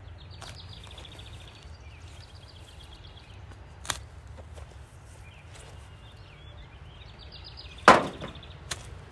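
Metal shovel blade chopping into garden soil: one sharp strike about four seconds in and a louder one near the end, followed by a lighter knock.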